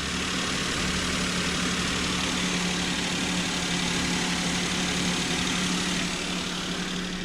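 Maruti Suzuki Alto's three-cylinder engine idling steadily with the bonnet open, running smoothly without vibration on freshly replaced engine mountings.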